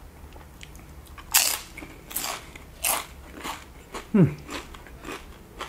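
Close-miked biting and chewing of sauce-covered tortilla chips: several sharp crunches in quick succession, then a loud crunch with a short falling hum about four seconds in, and softer chewing after it.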